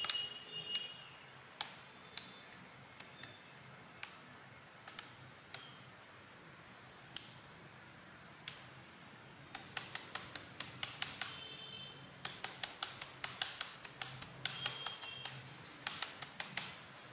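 Acer Aspire laptop keyboard keys clicking under typing fingers: a few scattered presses, then quick runs of taps from about ten seconds in, as the refitted spacebar is tried out.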